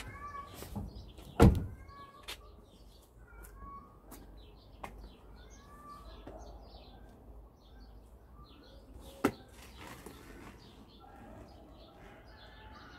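Birds chirping and calling throughout. About one and a half seconds in comes a single loud thump, a car door being shut, and later there is one sharp click.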